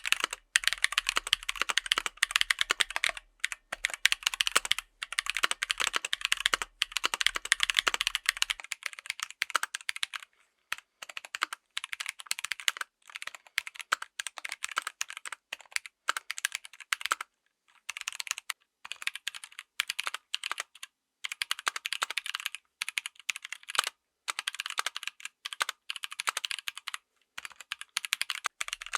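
Mechanical keyboard with tactile switches being typed on: fast runs of sharp keystroke clacks with short pauses between runs.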